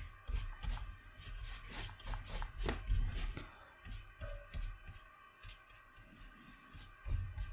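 A large round watercolour brush dabbing and stroking wet paint onto textured watercolour paper: irregular soft taps and scratchy brushing, busiest in the first half.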